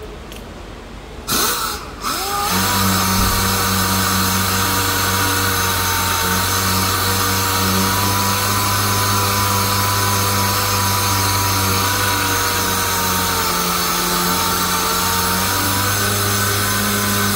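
Handheld power sander working the car's rear quarter panel. It spins up with a quick rising whine about a second and a half in, then runs steadily against the metal, its pitch dipping slightly now and then as it is pressed to the panel.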